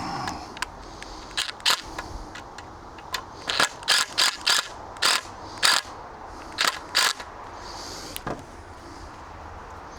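A run of sharp, irregular knocks and clicks, about a dozen of them, from hand work on a timber pea frame being assembled. They come in quick clusters through the middle of the stretch and thin out near the end.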